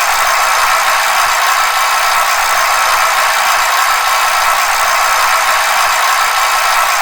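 Bicycle in motion, a steady whirring rattle that holds at one level throughout.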